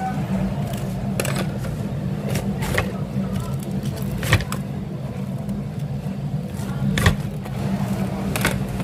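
Steady low hum of commercial kitchen equipment, with scattered sharp knocks and clatters of metal cooking tools, about seven over the stretch.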